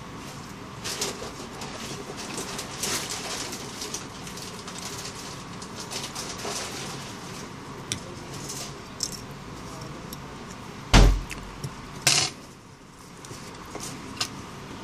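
Small metal clicks and scrapes of steel tweezers and a soldering iron working on a phone's circuit board as a soldered metal cover is lifted off, then two loud knocks about a second apart near the end.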